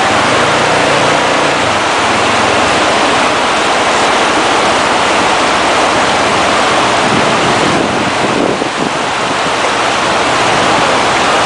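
River water rushing over rocks and boulders in a steady, loud roar.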